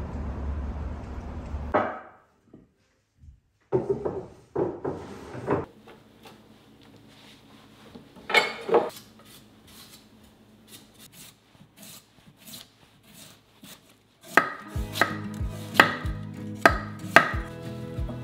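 Steady background noise for about the first two seconds, then a kitchen knife cutting a Korean radish on a wooden cutting board. Thin slices are shaved off at an angle, giving light scraping clicks and sharp knocks of the blade on the board. The knocks come in short clusters and grow dense and loud in the last few seconds.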